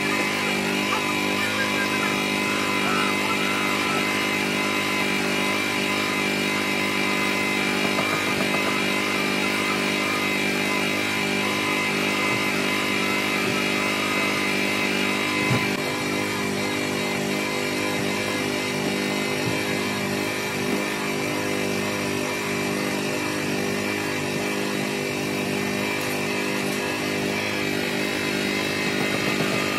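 Polishing motor running steadily with a droning whine, spinning a red buffing wheel against a plastic headlight lens to polish it clear.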